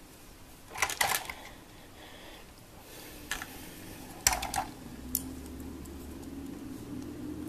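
Plastic LEGO pieces clicking and clacking as a built model is handled, in short clusters about a second in and again around four seconds in. A low steady hum comes in from about four seconds in.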